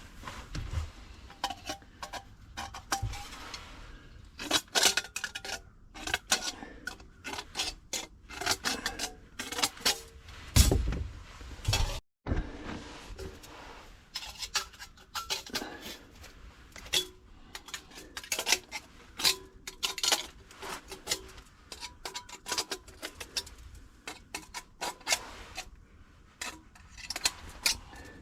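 Irregular clicks, taps and scraping of hand tools and hardware being handled while marking and trimming a fitting, with a brief gap of silence about twelve seconds in.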